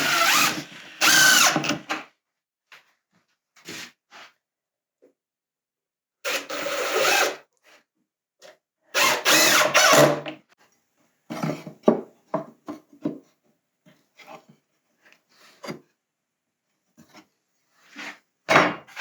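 Power drill driving screws into wood in three short runs of a second or two each, its pitch shifting under load. Between and after the runs come scattered small clicks and knocks of handling the wood and tool.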